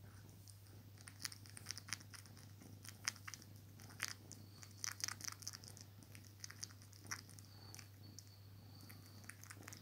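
A young tabby kitten suckling on a cotton t-shirt: soft, irregular wet smacking and clicking of its mouth on the fabric, over a faint steady hum.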